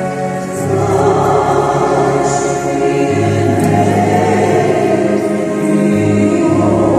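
A choir singing sacred music in long held chords that change about three seconds in and again near the end.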